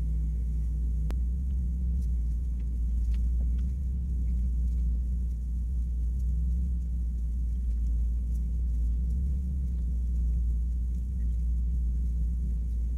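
Steady low electrical-sounding hum or rumble with a few faint, scattered ticks.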